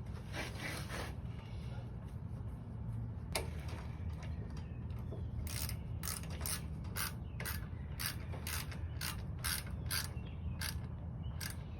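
Hand ratchet clicking as the 8 mm bolt holding the dipstick tube is snugged down, a quick even run of clicks starting about halfway through.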